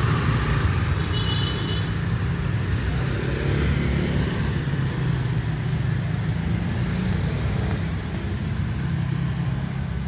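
Motorbike engines running close by over steady street-traffic rumble, with a few short high tones in the first two seconds.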